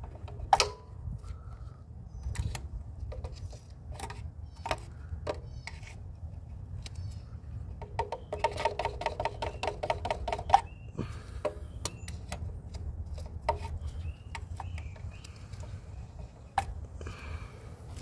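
Hand ratchet turning an ignition coil hold-down bolt: scattered single clicks, then a quick run of rapid ratchet clicking for about two seconds, starting around eight seconds in.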